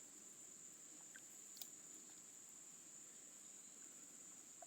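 Near silence, with a faint, steady, high-pitched insect drone and one faint click about a second and a half in.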